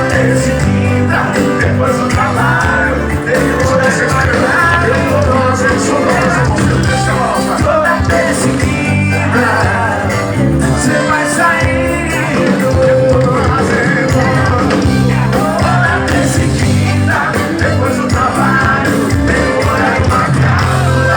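Rock song with a singing voice over a steady bass line, playing on without a break.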